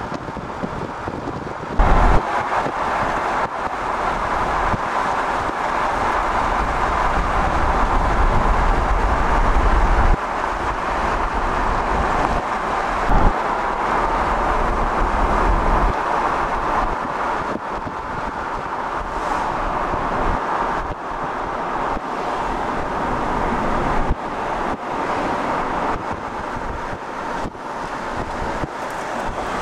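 Car driving at speed: steady road and tyre noise with wind rushing over the microphone, and heavy low wind buffeting through the first half.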